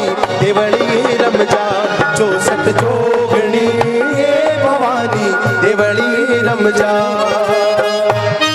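Instrumental interlude of a Rajasthani devotional bhajan: a harmonium plays a wavering melody over sustained reed chords, with a steady rhythm of strokes on a dholak barrel drum.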